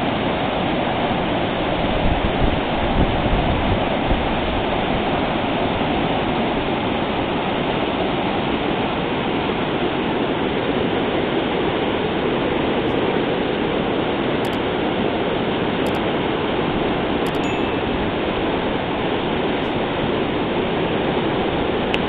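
Fast white-water river rapids rushing: a steady, loud roar of churning water, with a few low bumps about two to four seconds in.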